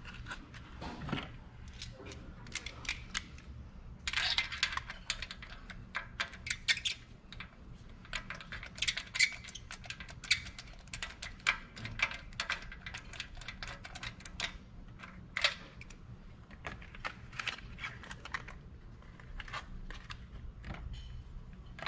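Ratchet and spark plug socket clicking and clinking in irregular short runs as new spark plugs are threaded into the Honda Civic's cylinder head by hand, not yet torqued.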